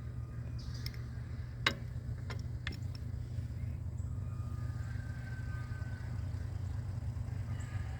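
Grease gun being worked on an excavator's grease fitting: four sharp clicks in the first three seconds, the loudest about a second and a half in, over a steady low engine hum.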